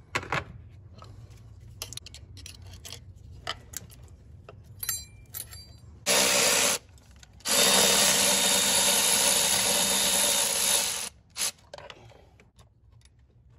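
Cordless electric ratchet spinning out a 10 mm bolt on the low-pressure fuel line: a short burst about six seconds in, then a longer run of about three and a half seconds. Before it, light metallic clicks and rattles of tools and line clips.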